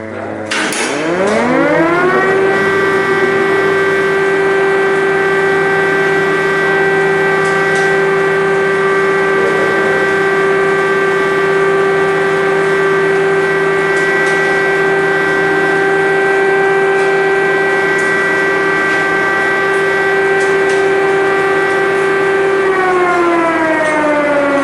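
Air-raid siren winding up over a second or two to a steady tone, holding it for about twenty seconds, then starting to wind down near the end.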